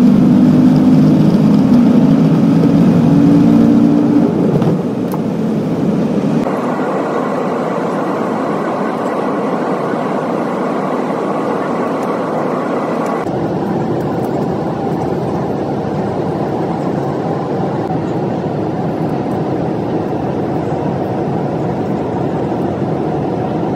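Airliner cabin noise during takeoff: loud jet engine noise with low droning tones for the first four or five seconds, then a steady rushing cabin drone that shifts in tone about six and thirteen seconds in.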